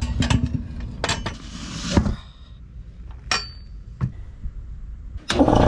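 Metal hand tools and parts clinking and knocking, a handful of separate sharp strikes with brief ringing. Near the end comes a louder rattling noise lasting about a second.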